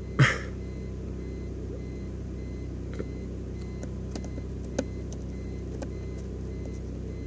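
Steady low electrical-sounding hum with a few faint clicks of the remote meter's arrow buttons being pressed, and a short noisy sound just after the start.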